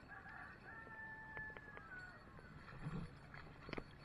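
A faint, drawn-out high call held at one pitch for about a second and a half and falling off at the end, followed by a few light knocks, the strongest near the end.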